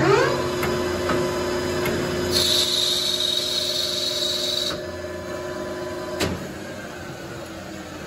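A manual engine lathe is switched on with a clunk and runs with a steady machine hum. A higher hiss comes in for about two seconds in the middle. About six seconds in, the lathe is stopped with another clunk.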